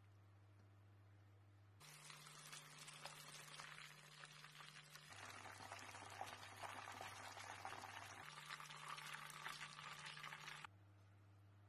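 Flour-dusted chicken pieces deep-frying in hot oil: a dense crackling sizzle that starts about two seconds in and cuts off abruptly about a second before the end.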